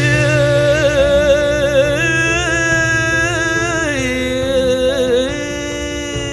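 A male voice sings a Balinese kidung in long, ornamented held notes with heavy vibrato over a sustained instrumental accompaniment and low drone. The voice line falls in pitch about four seconds in and tails off near the end, leaving the accompaniment.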